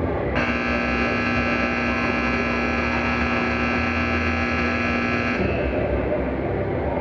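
Ice rink's horn sounding one steady tone for about five seconds, starting just after the beginning and cutting off suddenly, over a steady low rumble.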